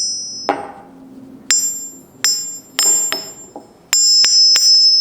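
A steel-faced forged anvil struck with a hammer about eight times in an uneven series, each blow leaving a high-pitched ring of several steady tones; the first knock is duller, with a lower ring. The taps are a ring test of the anvil.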